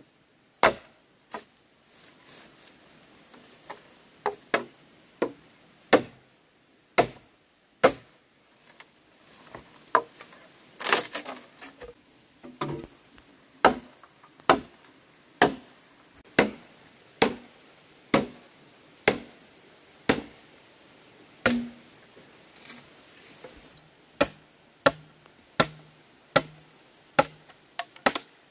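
Machete chopping green bamboo poles: a long series of sharp, separate strikes, about one a second, coming a little faster near the end.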